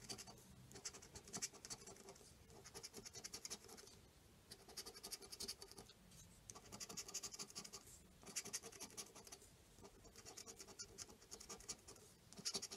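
Faint scraping of a plastic scratcher rubbing the scratch-off coating from a paper lottery ticket, in quick back-and-forth strokes. It comes in several spells with brief pauses between them.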